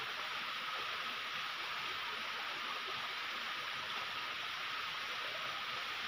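A small mountain waterfall and the rocky stream below it, water running and splashing in a steady, even noise.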